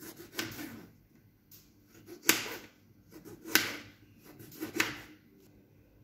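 Kitchen knife slicing through tomatoes and knocking on a plastic cutting board: a handful of separate cuts about a second apart, the two in the middle sharpest.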